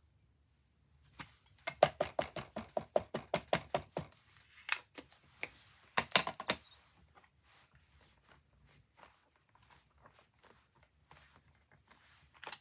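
Rapid light tapping, about five taps a second for nearly three seconds, then a few separate knocks, as a clear acrylic stamp is worked on a stamping platform, typical of repeated tapping or pouncing while stamping a card. Near the end there is a light click as the clear stamp is set down on the card.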